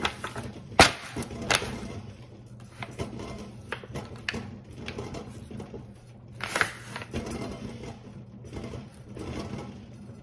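Raw chicken being rubbed and turned by hand in a disposable aluminium foil pan: scattered clicks and crinkles of the foil, the loudest about a second in, over a low steady hum.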